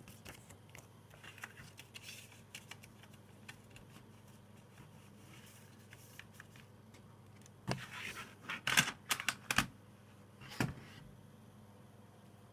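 Handling a CD booklet and plastic jewel case: soft paper rustling and light ticks, then a run of sharp plastic clicks and knocks about eight seconds in as the case is shut and set down on the desk.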